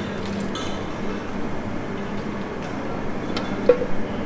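An aluminium ladle clinking a few times against metal cooking pots near the end, while onion gravy is ladled into a biryani handi, over a steady background rumble.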